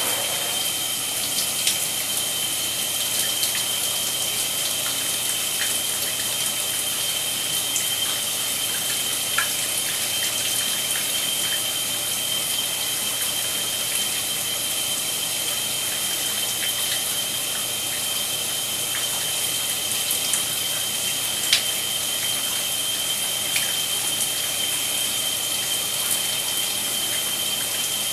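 Shower spray running steadily, an even hiss of water with a steady high whistle through it. A few small clicks sound over it, the sharpest about three-quarters of the way in.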